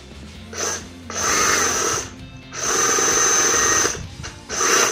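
Bosch 18V compact reciprocating saw running with a blade fitted and no load, in four short trigger pulls; the longest lasts just over a second.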